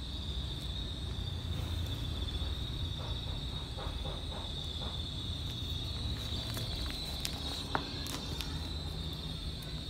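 Insects chirring in a steady high trill over a low background rumble, with a few sharp clicks about seven to eight seconds in.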